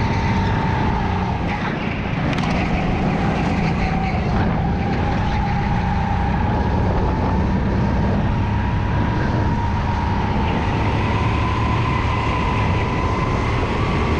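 Onboard sound of a go-kart engine running hard through a lap, a steady drone with a high whine that dips slightly and then climbs gently as the kart speeds up, over rumble and wind noise from the moving kart.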